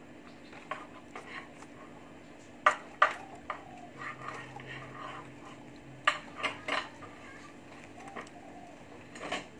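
Light clicks and knocks of fingers and fruit pieces against a plate as the fruit is picked over, about half a dozen sharp ones in two or three clusters, over a faint steady hum.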